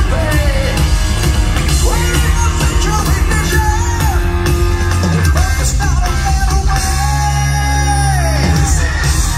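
Live rock band playing loudly, with a male lead singer over electric guitars and drums. About halfway through a long note is held for around three seconds before falling away.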